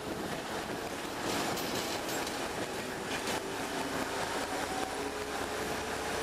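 Passenger train hauled by a ČD class 749 diesel locomotive, heard from an open carriage window while rolling along the track: a steady rumble of wheels and wind. A few clattering knocks come over the rails between about one and two seconds in and again near three seconds, with a faint whine underneath.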